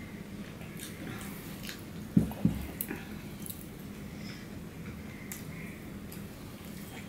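Close-up eating sounds: fingers squishing and picking at rice and curry on a ceramic plate, with chewing and small wet clicks. About two seconds in come two dull thumps close together, the loudest sounds here.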